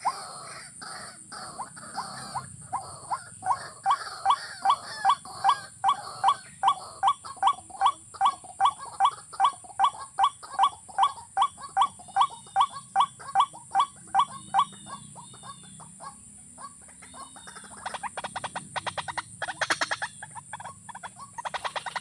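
Watercock calls: a hollow note repeated about three times a second for some fifteen seconds, then fading. Near the end comes a fast flutter of wingbeats as a bird flaps among the trap's snares.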